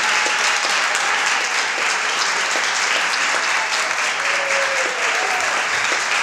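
Audience applauding steadily: many hands clapping at once, with a few faint voices calling out over it.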